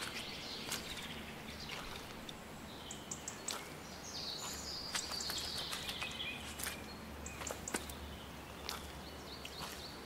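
Faint open-air ambience on a hiking trail, with scattered light footsteps. About halfway through there is a faint high sound that slides down in pitch over a couple of seconds.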